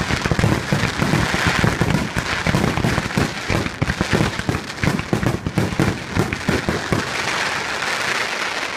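Fireworks finale set off at close range: a dense, unbroken run of launches, bursts and crackling, many reports a second.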